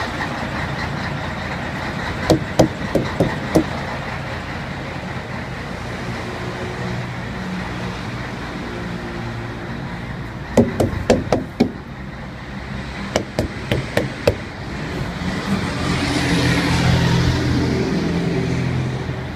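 Diesel truck engine idling steadily at a fuel stop. There are three runs of sharp clicks or knocks, and near the end a louder rush of vehicle noise swells and fades.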